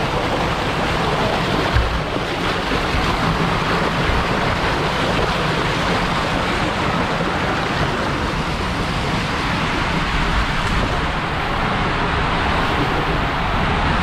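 Steady rushing of water pouring down a fiberglass waterslide, from the churning start tub along the open flume into an enclosed tube.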